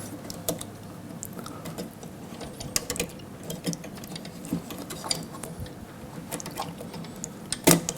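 Scattered light clicks and taps of hands working plastic hoses onto fittings inside a dental cassette sterilizer, with a sharper click near the end.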